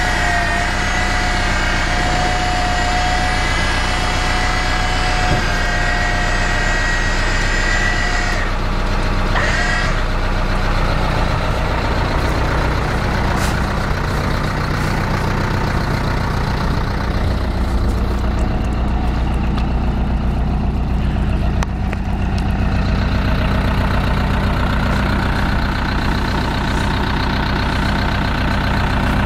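Mitsubishi Canter 3.3 TDI turbodiesel engine idling steadily. Over it a high steady whine sounds for the first eight seconds or so, cuts off, and returns briefly about a second later.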